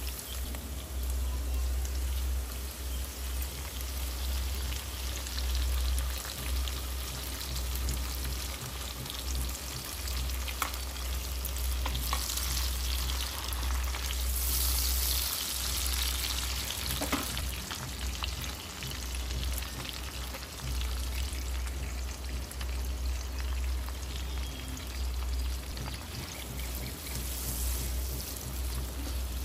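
Food frying and sizzling in hot oil in a pan, stirred now and then with a spoon that clicks lightly against the pan, with a steady low hum underneath.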